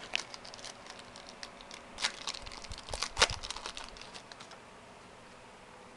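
Trading cards handled and flipped through by hand: a run of light clicks and crinkly rustles, with the loudest snaps about two and three seconds in, before the handling stops.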